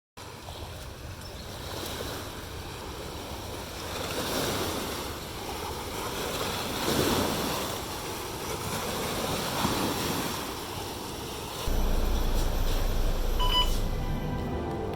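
Sea waves washing in and out with wind, swelling every few seconds. About twelve seconds in they give way to a louder low rumble, with one short beep.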